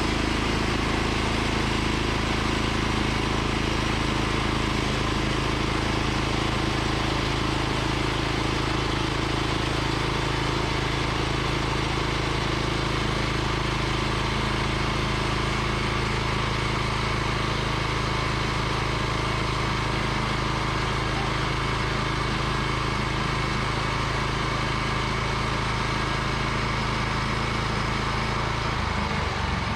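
Portable sawmill's gasoline engine running steadily while milling a log, its engine note shifting just before the end.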